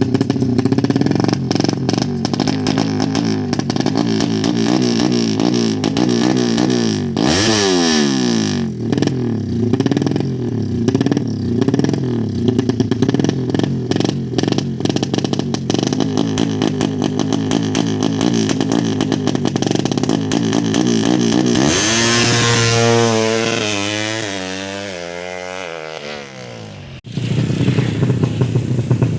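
Yamaha MX King motorcycle engine, a single-cylinder four-stroke, being revved over and over as it is tuned, its pitch rising and falling with the throttle. About three-quarters of the way through it climbs to a long high rev that then winds down, and shortly after, the sound breaks off abruptly and comes back.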